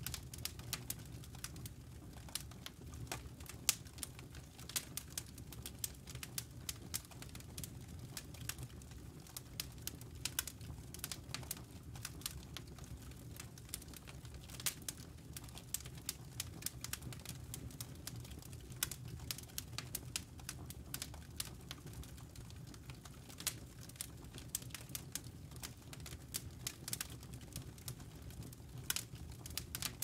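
Wood fire crackling, with irregular sharp pops and snaps several times a second over a steady low rumble.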